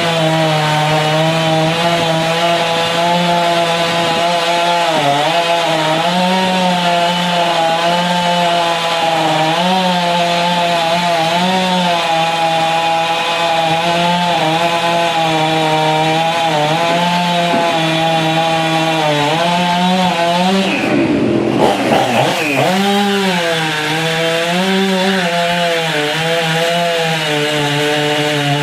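Ported professional two-stroke chainsaw cutting wood at high revs with a dull chain, its pitch sagging and recovering over and over as the bar loads in the cut. About twenty-one seconds in, the engine briefly drops much lower and climbs back up.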